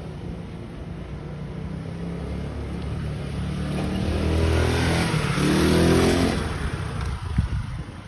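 A motor vehicle's engine coming closer and passing, growing louder to a peak about six seconds in and then falling away, with a sharp knock shortly after.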